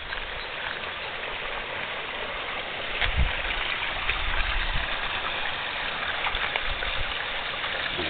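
Steady rushing hiss of running water, with a few low bumps on the microphone about three to five seconds in.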